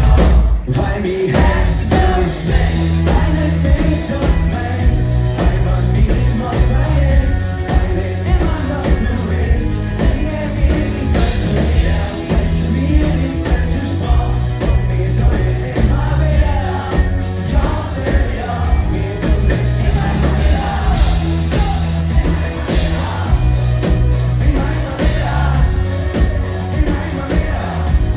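Live rock band playing with a lead vocal over a steady, heavy bass line that moves between notes every second or two.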